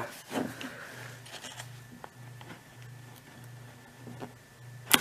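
Cardboard box being handled, with faint rustling and small scrapes and ticks as a pointed tool works at its sealing tape. A sharp click comes just before the end.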